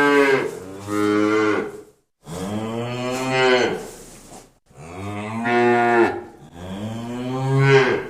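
Cattle mooing: several long, drawn-out moos one after another, separated by short breaks.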